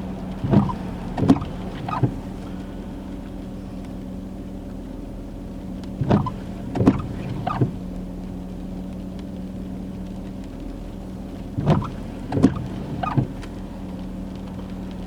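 Car windshield wipers on an intermittent setting sweeping the rain-wet glass. Three short runs of about three strokes each come roughly five and a half seconds apart, over a steady low hum inside the car.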